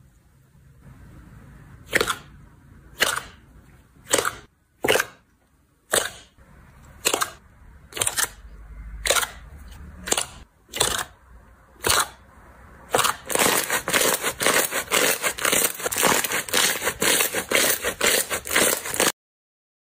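Slime being pressed and squeezed by hand, giving crisp crackling snaps: single snaps about once a second at first, then fast, almost continuous crackling that cuts off suddenly near the end.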